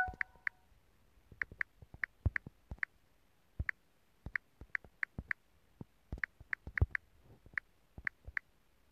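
Key-press clicks of an Android phone's on-screen keyboard as a comment is typed letter by letter: about twenty short, high clicks at an uneven typing pace.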